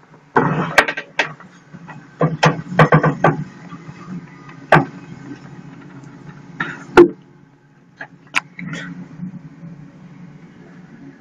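Wheel loader's diesel engine idling with a steady low hum, heard from inside the cab, over a run of sharp clicks and knocks, several in quick succession in the first three seconds and single loud ones about five and seven seconds in.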